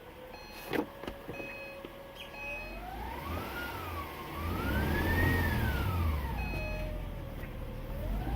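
2010 Acura TL's engine whine, a single pitch that climbs and falls with the revs: it rises, dips briefly, rises higher around the middle and settles back to a steady idle pitch. A sharp click about a second in.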